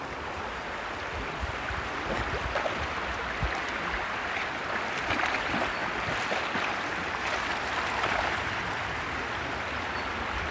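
Shallow river water running and lapping, with splashing as a dog wades through it.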